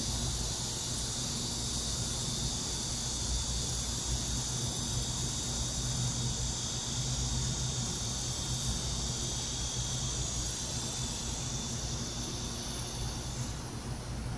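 Steady chorus of insects chirring, a high buzz that fades away near the end, over a low background rumble.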